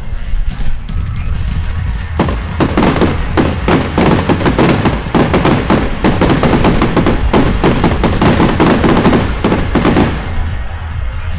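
Rapid barrage of firework bangs and crackles, many shots a second, starting about two seconds in and stopping shortly before the end, over background music.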